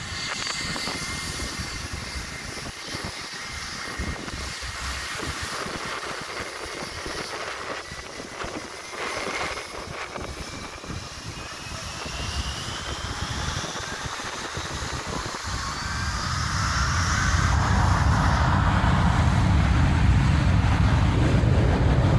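An airliner's jet engines spooling up for takeoff: a whine rising steadily in pitch, then, about three-quarters of the way in, a loud low rumble as takeoff thrust builds.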